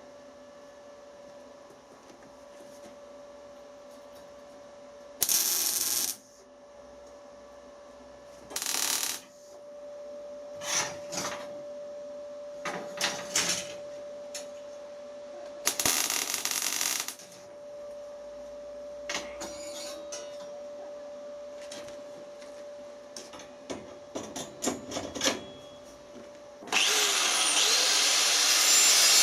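Hand work on metal at the bench over a steady machine hum: several short scraping strokes and clicks, then continuous rasping strokes from about 27 seconds in.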